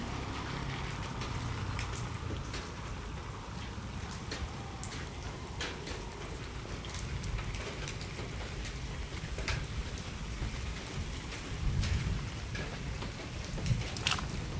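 Light drizzling rain falling steadily, with scattered single drops ticking sharply on surfaces, over a low rumble underneath.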